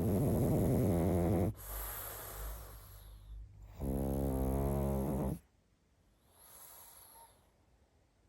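Pug snoring in its sleep: two loud snores, each about a second and a half long, with a softer breath between them and a faint breath near the end.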